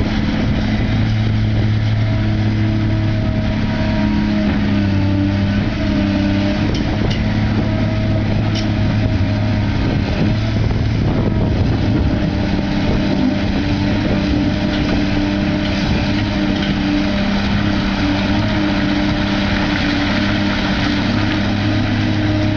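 Heavy machine's diesel engine running steadily with a constant low hum, over a dense mechanical roar.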